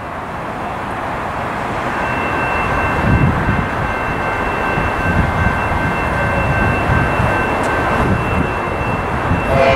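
EMD F40PHM-2C diesel-electric locomotive approaching with a rising engine and rail rumble, along with a faint steady high whine. Its horn starts to sound near the end.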